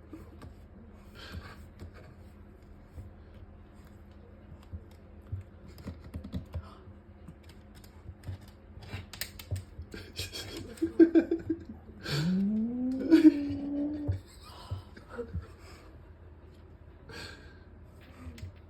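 Pet cat making odd sounds: scattered soft clicks, a short wavering note, and then, about twelve seconds in, a loud call that rises sharply in pitch and is held for about two seconds.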